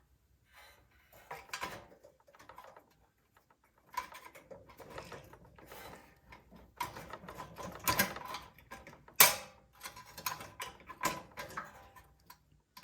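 Small metal parts of a small-engine carburetor being handled while the throttle linkage is hooked back up: irregular light clicks, taps and rattles, with one sharp click about nine seconds in.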